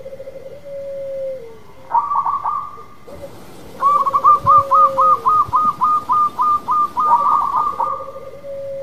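Zebra dove (perkutut) cooing: a quick stutter of soft notes running into a long held coo that drops at the end, three times over. Between the coos a fast run of higher repeated notes goes on for about three seconds, about five a second.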